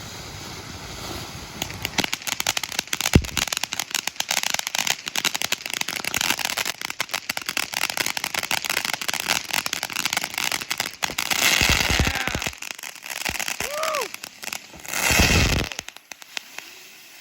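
Black Cat Close Encounters firework fountains ending in ground blooms. First comes dense, rapid crackling and popping, then the ground-bloom spinners hiss, with a short whistle near the end and a loud hiss just after it.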